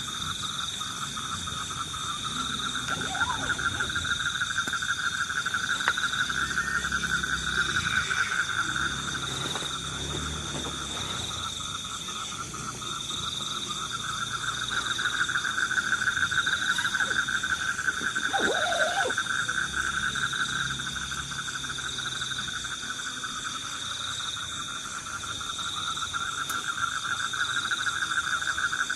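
Steady night chorus of frogs and insects: a continuous fast trill with a higher note pulsing evenly underneath. Two short rising calls stand out near 3 seconds and again around 18 seconds.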